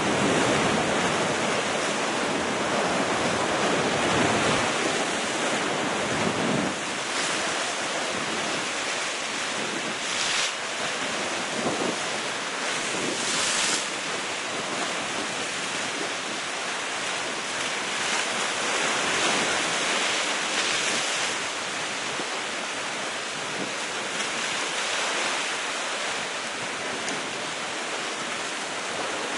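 Sea waves breaking and crashing against the rocks at the foot of a cliff: a continuous surf wash that swells and ebbs with each wave, with some wind on the microphone.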